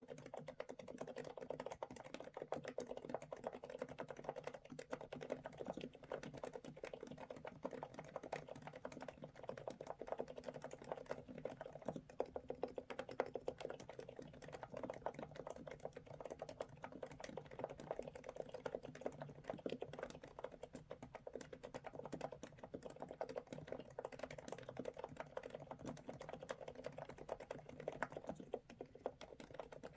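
Continuous typing on a NIZ X99 electrostatic capacitive keyboard with fully lubricated 50 g switches: a dense, steady stream of keystrokes.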